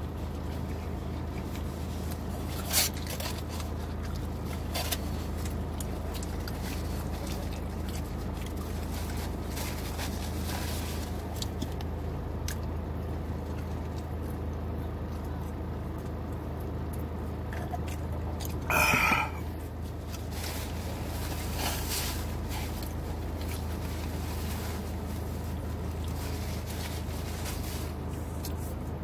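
Eating and drinking inside a car: small clicks and rustles over a steady low hum, with one brief, louder rustle about nineteen seconds in.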